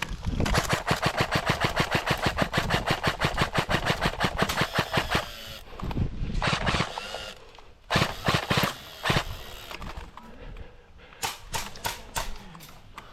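Airsoft gun firing on full auto: a long rapid burst of about ten shots a second lasting roughly five seconds, then several shorter bursts.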